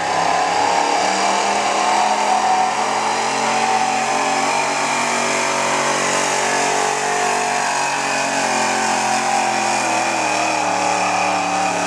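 Gasoline engine of a late-1970s Ford F-series pickup running hard under load as it drags a weight-transfer pulling sled across dirt. The pitch holds steady and sags slightly in the last few seconds.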